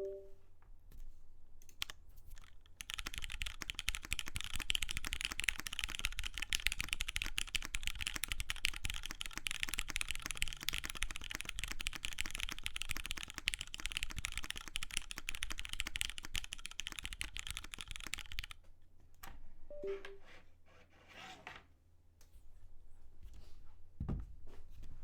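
Custom GS60 mechanical keyboard, o-ring mounted with GMK keycaps, typed on fast and steadily for about fifteen seconds, then a handful of scattered keystrokes. A short two-note blip sounds right at the start and again about twenty seconds in.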